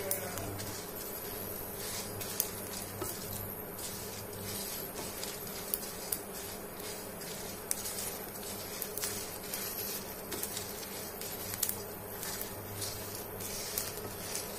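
Whole spices and dried chillies dry-roasting in a non-stick pan on an induction cooker, stirred with a silicone spatula: a steady low buzz from the cooker with scattered light clicks every second or two.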